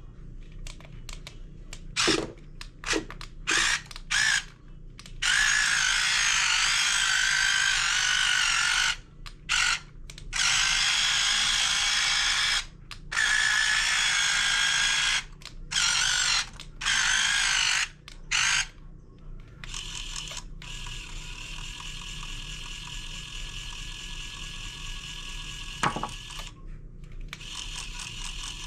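Small electric gear motors of a 1:16 scale radio-control Cat 272D skid steer whirring in repeated stop-start bursts, each from a fraction of a second to several seconds long. From about twenty seconds in, a quieter steady whine carries on, with a single click near the end.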